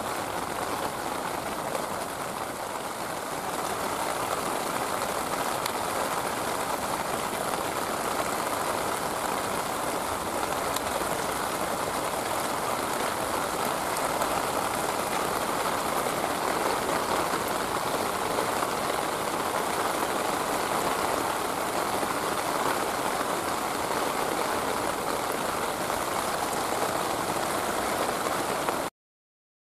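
Heavy rain pouring down in a steady, dense hiss of a downpour, swelling slightly a few seconds in; it cuts off suddenly near the end.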